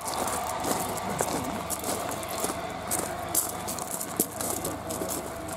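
Footsteps on gravel, several people walking at once, with a crowd talking in the background.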